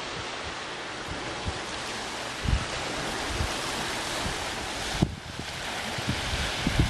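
Steady rushing hiss of wind and shoreline water, with wind buffeting the microphone in low thumps about two and a half and five seconds in.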